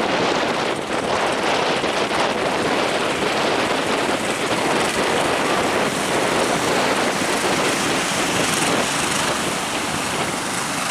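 Strong wind blowing over the microphone together with waves breaking, a loud steady rush of noise.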